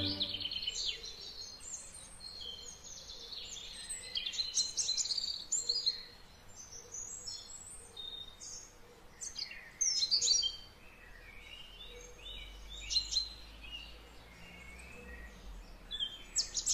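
Songbirds chirping and trilling in short, high calls that come and go in bouts, over a faint steady background hiss.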